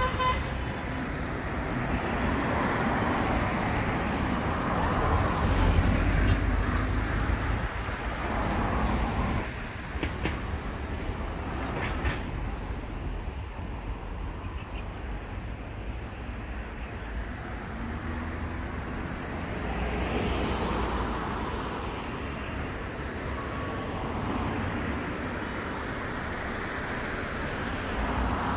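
City road traffic passing: a steady wash of tyre and engine noise, with vehicles swelling past loudest about five seconds in and again around twenty seconds in.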